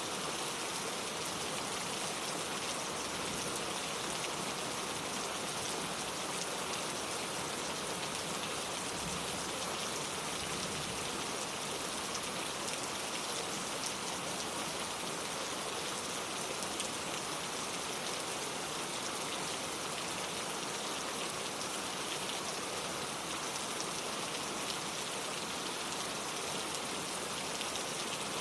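Steady rain falling, a continuous even hiss of raindrops.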